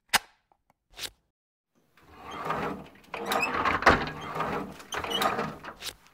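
Two short clicks, then a drawer sliding and being rummaged through for about four seconds, with scraping and small clicks.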